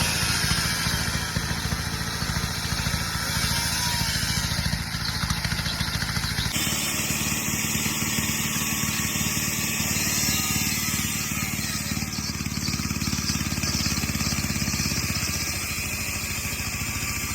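Engine-driven bandsaw mill running steadily, its motor giving a low, even hum. The sound changes abruptly about six and a half seconds in.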